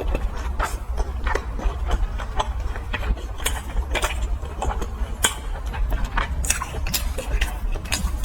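Close-miked chewing of fried skewered food: irregular crisp crunches and mouth clicks over a low steady rumble.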